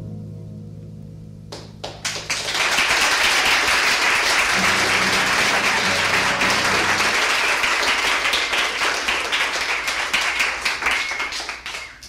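An acoustic guitar's last chord fades out over the first second and a half, then an audience applauds, a dense patter of many hands clapping that runs until just before a new guitar piece begins at the very end.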